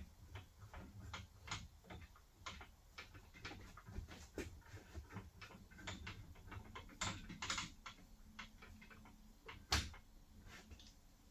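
Scattered light clicks and taps of metal parts being handled and fitted while assembling a drywall hoist, with one louder knock near the end.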